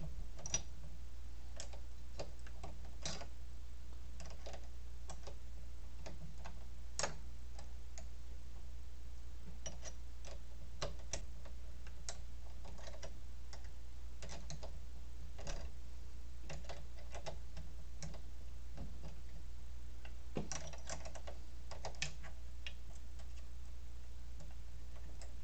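Irregular small clicks and taps of a hex key turning screws and knocking against the metal print-head carriage of an Elegoo Neptune 4 3D printer, over a steady low hum.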